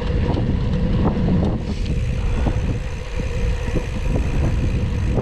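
Wind rushing over the microphone while riding a gravel bike, with the rolling noise of the tyres and small scattered knocks and rattles.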